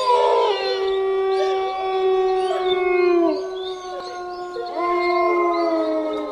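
Several overlapping animal howls: long held notes that bend and slide down at their ends, with a fresh howl rising about five seconds in.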